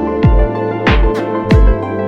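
Background electronic music with a steady beat: a deep kick drum hits about one and a half times a second over held synth chords.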